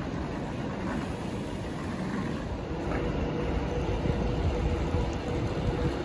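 Avanti West Coast Class 390 Pendolino electric train running in along the platform: a steady low rumble that grows slowly louder as it nears, with a faint steady whine joining about halfway.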